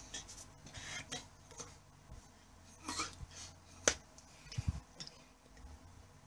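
Soft rustling with scattered light clicks and taps from hands and clothing moving in quick signing gestures close to the microphone, with a couple of dull low thumps about two-thirds of the way in.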